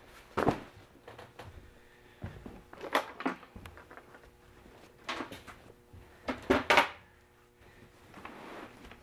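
Knocks and clatters of folding-kayak frame parts being handled and packed, a few sharp knocks spread through, with a cluster of them a little before the end.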